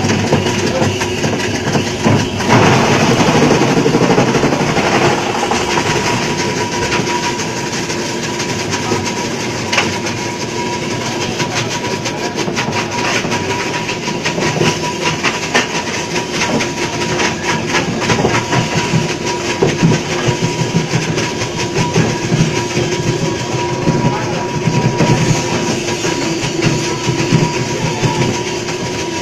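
Electric ice block crusher running, a steady motor hum under fast, even clattering as ice is shredded and crushed ice spills from the outlet.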